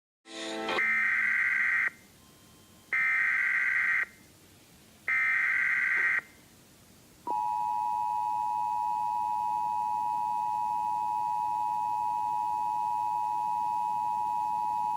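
Emergency Alert System SAME header: three screechy digital data bursts, each about a second long. These are followed by the EAS two-tone attention signal, a steady dual tone just under 1 kHz that holds for about eight seconds and cuts off at the end.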